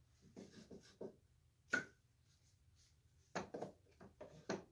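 Hand-sanding and handling a new wooden tote on an old wooden scrub plane. There are a few short rubbing strokes, a sharp wooden knock about two seconds in, and a quick run of short rubs and taps near the end.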